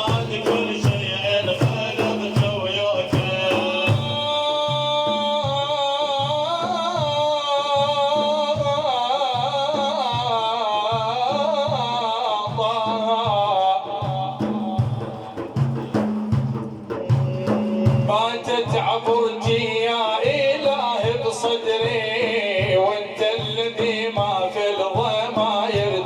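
Middle Eastern devotional music: a steady drum beat of about two strokes a second under a wavering, ornamented melody line, which drops out briefly past the middle while the drum carries on.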